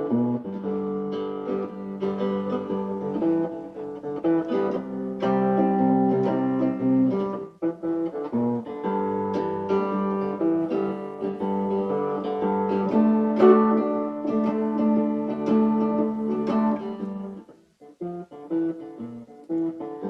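Guitar playing strummed chords, an instrumental passage between sung verses of a song, with a brief pause about seven and a half seconds in and another near the end.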